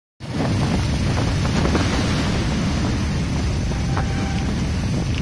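Steady wind noise buffeting the microphone of a camera carried on a bicycle coasting fast downhill.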